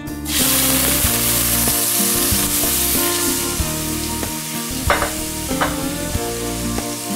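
Chopped onions hitting hot olive oil in a steel pot and sizzling: a loud hiss starts suddenly as they go in and keeps on steadily. Two short clinks come about five seconds in.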